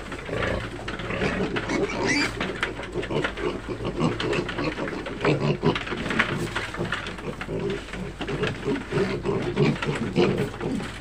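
A litter of weaned piglets crowding a trough and eating dry pre-starter feed greedily: continuous chomping and crunching with short grunts.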